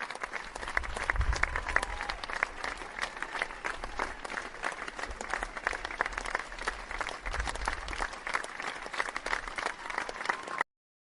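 Applause from a group of people: many hands clapping at once, dense and irregular. It cuts off abruptly near the end.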